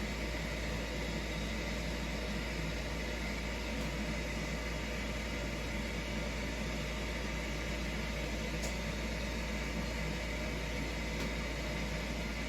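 A steady machine hum with fan-like noise and a low rumble, unchanging throughout.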